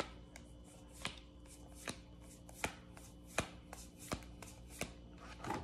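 Stiff game cards being laid down one after another on a table, a light sharp tap about every three quarters of a second.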